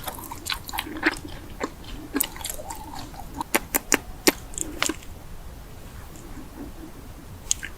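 Close-up chewing and biting of food, with sharp crunchy clicks and crackles over the first five seconds, then quieter chewing with a single click near the end.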